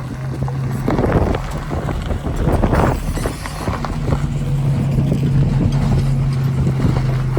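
Side-by-side off-road vehicle engine running, with a steady low tone that drops away about a second in and comes back about halfway through. Wind buffets the microphone, and there are scattered knocks and rattles.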